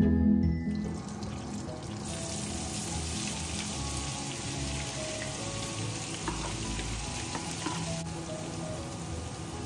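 Butter and oil sizzling in a frying pan. Chopped onion is tipped in and stirred with a spatula, and the steady frying hiss goes on.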